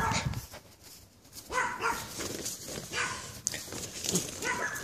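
A dog barking in short bursts, about five times.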